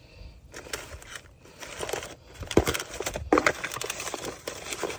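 Rear brake caliper being lined up over new brake pads on the bracket: irregular metal clicks, scrapes and light rattles, with a few sharper knocks in the middle.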